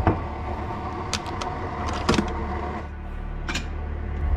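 Kitchen handling sounds as coffee is made: several sharp clicks and clinks, about one a second, from reaching into a glass jar and working a Keurig single-serve coffee maker, over a steady low hum.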